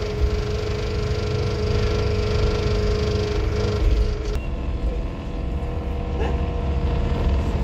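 Engine and road rumble of a moving air-conditioned coach, heard inside the cabin, with a steady hum that stops about four seconds in.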